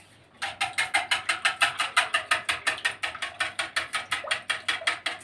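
Wire whisk beating eggs, water and oil in a small metal pot, the wires clattering against the pot's sides in a fast, even rhythm of about six strokes a second, starting about half a second in.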